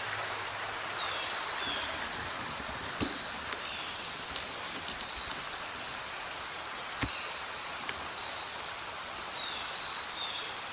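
Woodland ambience: insects trilling in a steady high, even tone over a steady hiss, with occasional short chirps and a few sharp clicks.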